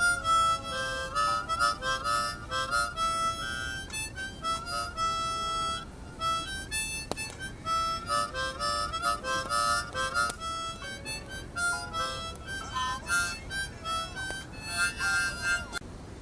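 Harmonica played solo: a melody of held notes and quick runs, with short breaks between phrases, stopping shortly before the end.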